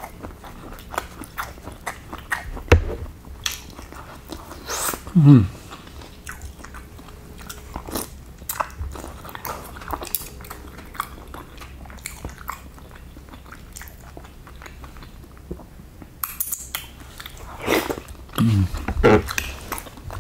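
A person chewing and biting into bakso meatballs, noodles and crunchy toppings close to the microphone: many small crunches and wet mouth clicks. A short hum about five seconds in, and a few more short hums near the end.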